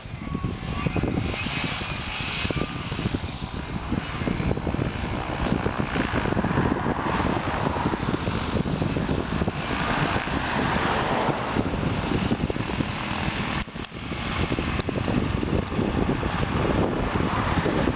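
Panther XL flex-wing microlight trike's engine and pusher propeller running steadily as the trike taxis across grass toward the microphone. The sound drops briefly about three-quarters of the way through.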